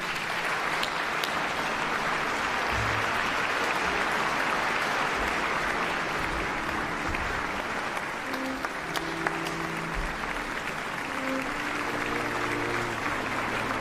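Concert-hall audience applauding steadily.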